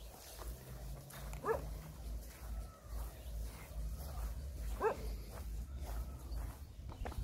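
A dog barking twice, short single barks about three seconds apart.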